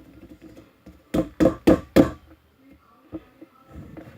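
Four quick, loud knocks in a row, about a second in.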